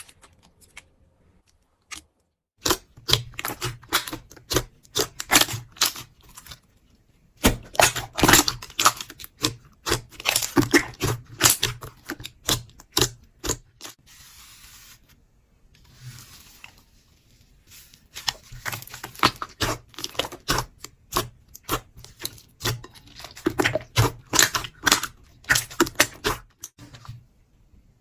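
Slime being squeezed and pressed by hand, giving rapid crackling clicks and pops in several long runs with short pauses between them, and a softer squishing hiss partway through.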